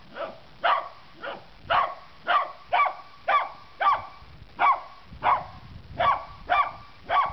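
Chocolate cocker spaniel barking in a steady run of short barks, about two a second, alert barking at a large cockroach.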